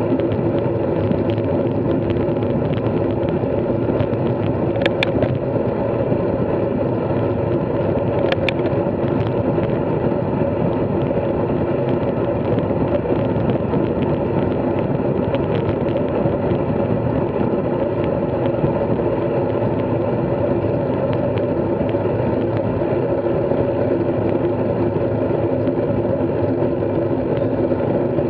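Steady riding noise from a bike moving at an even speed: a continuous rush with a steady hum under it. Two brief high clicks come about five and eight seconds in.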